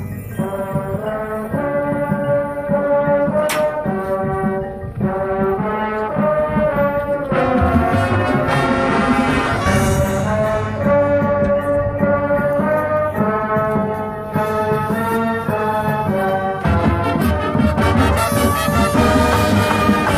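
Marching band brass section playing a slow passage of held, full chords over low brass and drums. The sound swells louder about a third of the way in and again near the end.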